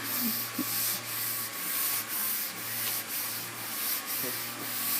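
Hand block sanding with a Curvecaster long sanding board: sandpaper rasping back and forth across a primed, guide-coated car trunk lid in even strokes, about two a second.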